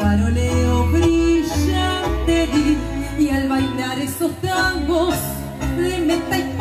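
Tango sextet playing live through a PA: a woman sings into a microphone over electric piano and violin, with a steady bass line underneath.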